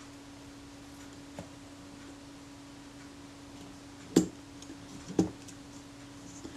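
A few small clicks and taps as a wooden applicator stick and grease container touch the metal mechanism of a camera body, two sharper clicks about four and five seconds in. A steady low hum runs underneath.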